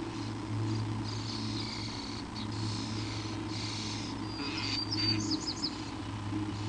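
Small bird chirping and twittering in short high calls, with a quick run of down-slurred chirps about five seconds in, over a steady low electrical hum.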